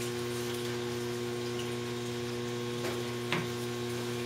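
Submersible pump in a hydroponic flood-and-drain reservoir running with a steady electrical hum as it pumps water up to flood the table and saturate the rockwool cubes. There is a light tap a little after three seconds.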